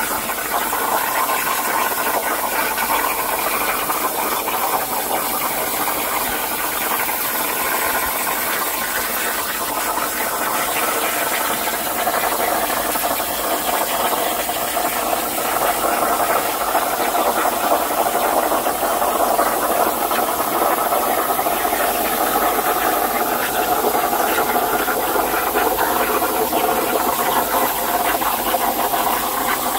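CNC plasma cutter torch cutting metal plate: the plasma arc and its air jet make a loud, steady hiss.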